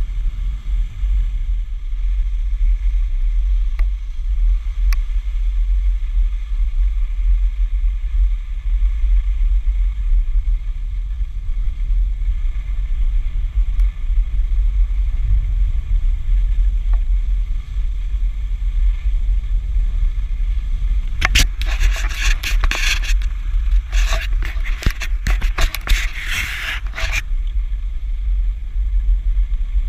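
Steady low rumble of wind on the microphone while skiing downhill, with a faint hiss of skis gliding on snow. About twenty seconds in, two stretches of louder, scratchy scraping of skis on snow, lasting several seconds together.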